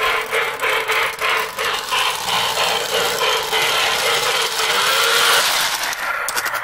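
Lionel O-gauge electric model train running on three-rail track, wheels clicking over the rail joints about three to four times a second over a steady motor hum. It grows louder as the locomotive comes up and passes close by.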